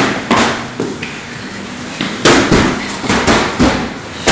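An irregular series of sharp bangs and knocks, about ten in all, the loudest and closest together from about two seconds in.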